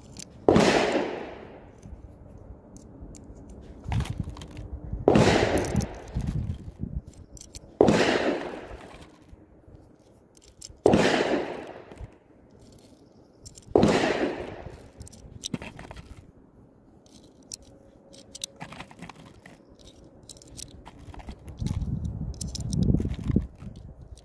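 Five gunshots a few seconds apart, each a sharp crack trailing off in an echo. Between them come light clicks of .22 LR rounds being thumbed into a GSG 1911 pistol magazine, and a low rumble comes near the end.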